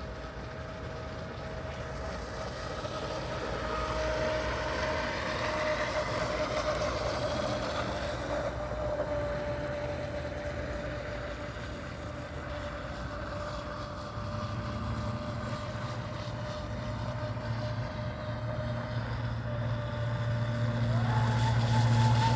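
RC boat's motor whining steadily over the wash of its hull on the water, growing louder and then fading as it runs past. Near the end the whine steps up in pitch as a low hum comes in, and the sound grows louder again.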